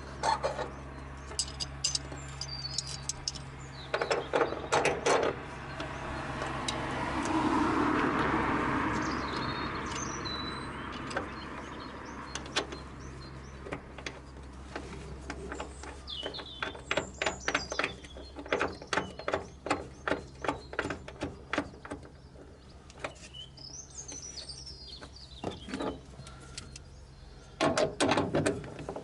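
Runs of sharp mechanical clicks, in places about two or three a second like a ratchet, with a swell of rushing noise early on. Birds chirp now and then, over a low steady hum that stops near the end.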